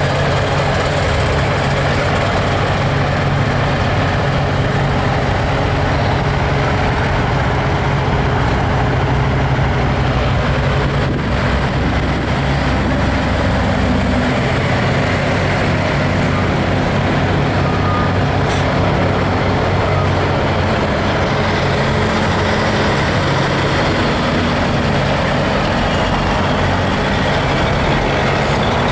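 Diesel engines of big-rig semi tractors running as a line of trucks drives slowly past, a loud steady low drone.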